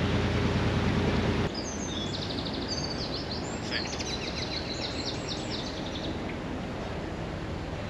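Narrowboat engine running steadily with a low hum, which cuts off suddenly about a second and a half in. A small bird then sings a run of quick, high chirps and trills over faint outdoor background noise.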